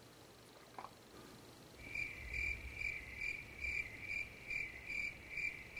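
A high, even chirp repeating a little more than twice a second starts about two seconds in, over a faint low hum; before it there is only a faint click.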